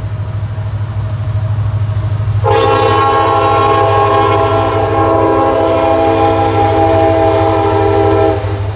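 Diesel freight locomotive's air horn sounding one long, loud chord of several notes from about two and a half seconds in, stopping shortly before the end, over the low steady rumble of the approaching train.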